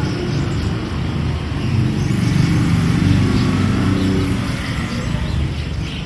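Road traffic: vehicle engines running and passing, a steady low rumble with engine tones rising and falling.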